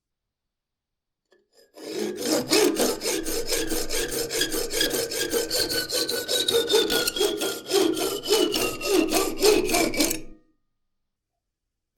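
Rapid back-and-forth hand-tool strokes, about four a second, working on wood or metal, with a faint whine that slowly falls in pitch. The strokes start about two seconds in and stop abruptly near the end.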